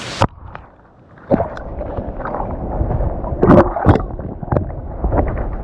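A camera dunked underwater: a splash at the start, then muffled underwater gurgling and sloshing with scattered knocks and thumps, all sound above a mid pitch cut away by the water.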